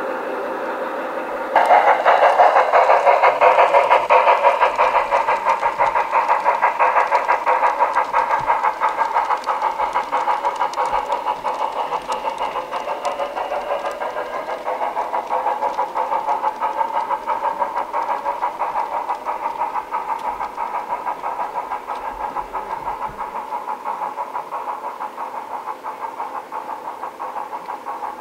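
Garden-railway model train running along the track: a steady whirring with a fast, even pulse, starting abruptly about a second and a half in and slowly fading.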